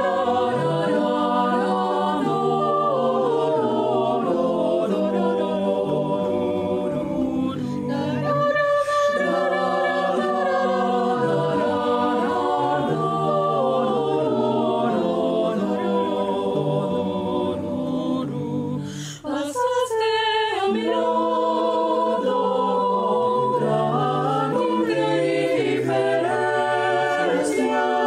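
Mixed choir of women and men singing a cappella in several-part harmony, with a short break about two-thirds of the way through before the voices come back in.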